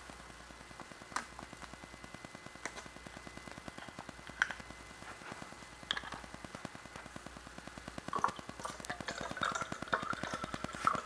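A few sharp clicks and knocks of plastic water bottles and clear plastic cups being handled on a table, then water poured from a plastic bottle into a plastic cup for the last few seconds, over a faint steady buzz.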